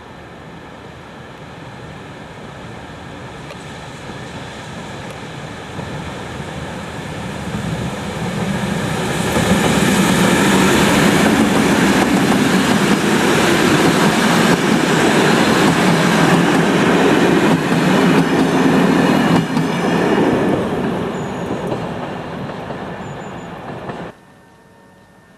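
SNCB train passing close by: it grows louder over the first several seconds, stays loud for about ten seconds, then eases off and cuts off abruptly near the end.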